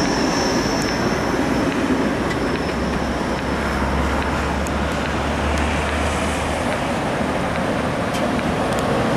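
Tatra trams rolling along street track with a steady rumble mixed with road traffic. A thin high whine fades out about a second in, and a deeper hum rises and then fades between about three and six and a half seconds as the next tram draws near.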